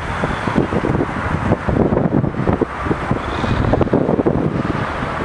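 Wind buffeting the microphone in uneven, rapid gusts over a low steady rumble from the demolition crane's engine.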